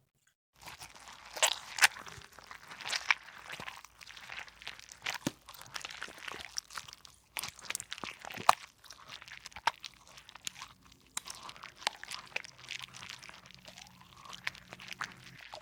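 Slime being squeezed and pressed by hand, giving irregular sharp crackles and pops that start about half a second in.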